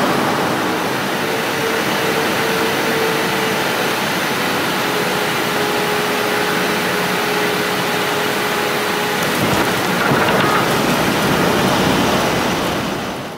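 Airliner cabin noise on a night landing: a steady, loud rush of engine and airflow noise with faint steady engine tones, swelling a little with a few brief knocks about ten seconds in as the plane reaches the runway.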